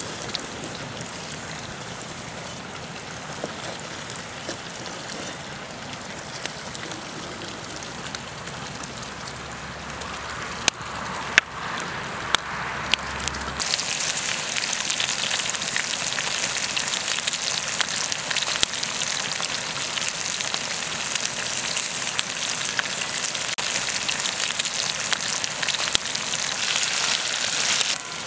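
Hot cooking oil sizzling in a wok over a wood fire, with a few sharp clicks, then, about halfway through, a sudden louder, hissier frying as sliced potatoes fry in the oil.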